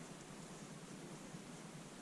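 Faint steady hiss: quiet room tone, with no distinct sound from the work.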